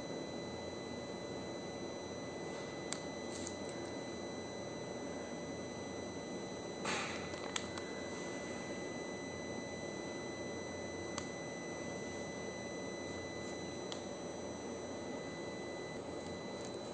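Steady background hiss with a faint, high-pitched steady electronic tone, broken by a few light clicks and a brief rustle about seven seconds in as a plastic phone case and its packaging are handled on a table.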